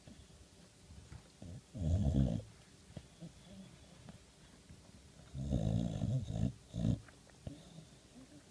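A sleeping boxer dog snoring and grumbling in its sleep, in low-pitched, irregular bursts. There is a short burst about two seconds in, a longer one about five and a half seconds in, and a brief one just after it.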